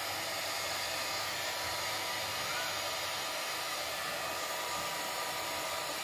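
Steady whooshing hiss of a handheld iTeraCare terahertz therapy device's fan blowing, like a small hair dryer running, with a faint steady whine.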